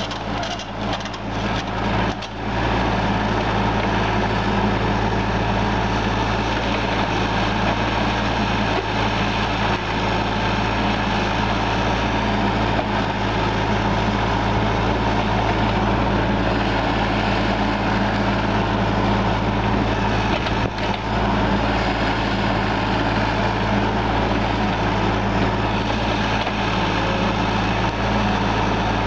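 Kubota U35 mini excavator's diesel engine running steadily while the arm and bucket dig soil, a continuous low drone, with a few brief dips in the sound in the first couple of seconds.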